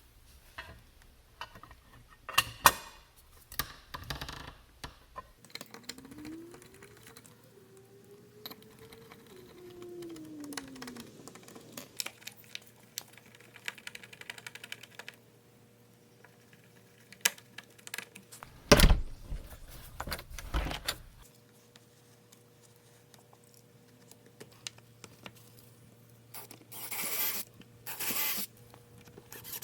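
Metal lock hardware clicking, tapping and knocking as a Schlage keypad deadbolt is handled and fitted into a door. There are two heavier thumps about two-thirds of the way through and a couple of short noisy bursts near the end.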